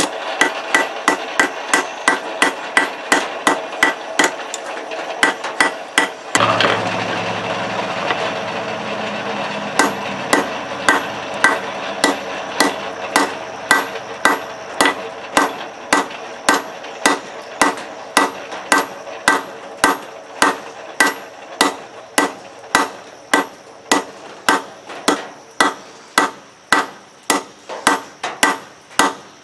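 Blacksmith's hammer forging half-inch round steel stock on an anvil, blows in a steady rhythm of about three a second with the anvil ringing between them. The hammering breaks off for about four seconds a little after six seconds in, while a low hum is heard, then resumes at a slightly slower pace.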